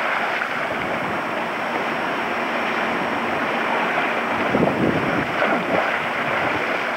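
Water splashing in an above-ground swimming pool as people jump and swim, with a bigger splash about four and a half seconds in, over a steady rushing noise.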